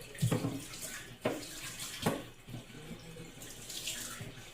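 Kitchen tap running into a sink while raw chicken is rinsed under it, with three sharp splashes or knocks in the first two seconds.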